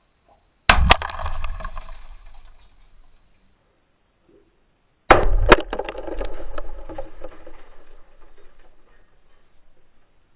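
A 2003 Subaru Forester's laminated windshield struck hard: a sharp double crack as the glass gives, then crackling and tinkling that fades out over a couple of seconds. The same smash is heard again about five seconds in, lower in pitch and lasting about twice as long.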